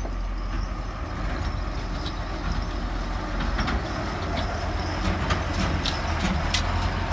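Heavy dump truck driving past on a dirt road: a steady low engine rumble, with clattering and rattling from the truck from about three and a half seconds in.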